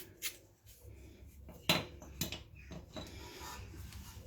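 A few light metallic clinks and knocks, the loudest about one and a half seconds in, as steel-backed brake pads and small metal parts are handled and set down.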